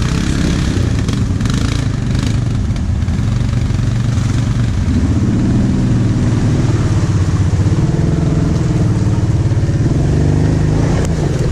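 ATV engine running under load while driving through deep mud, its note rising with the throttle about five seconds in and holding there.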